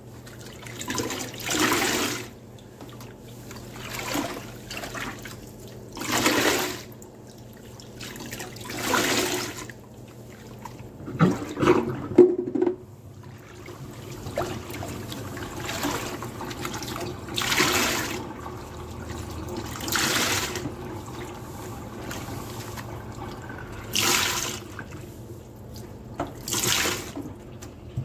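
Soapy sponge squeezed over and over, water and suds gushing out with each squeeze, roughly every two to three seconds. About halfway there is a brief sharper sound, a couple of knocks or squelches, which is the loudest moment.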